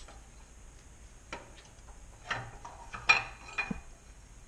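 Scattered sharp metal clinks and light scrapes as the stock camshaft of the Nissan VG33 V6 is worked out of its cylinder head. The loudest clink comes a little after three seconds in and rings briefly.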